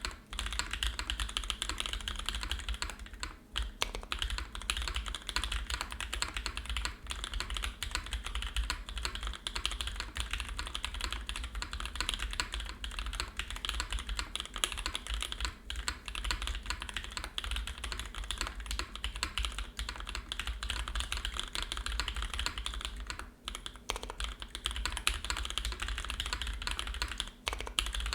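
Fast, continuous typing on a Matrix 2.0add mechanical keyboard with lubed, broken-in NovelKeys Cream linear switches, GMK Dracula keycaps and a full aluminium plate. The keystrokes run dense and even, with a few brief pauses, one about three seconds in and two near the end.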